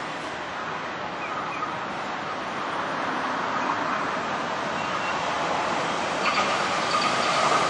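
Kintetsu electric train approaching along the platform, its running noise growing steadily louder, with a faint high whine joining near the end.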